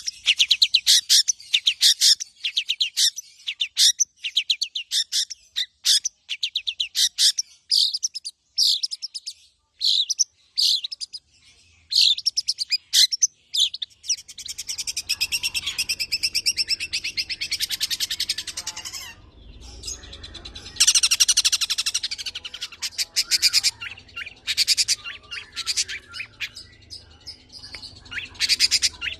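A long-tailed shrike (cendet) sings a fast, high-pitched song of short, rapid chattering phrases, full of mimicked calls. In the first half the phrases are broken by brief pauses. From about halfway a faint low hum comes in underneath, and the song runs nearly continuously, with its loudest rapid run past the middle.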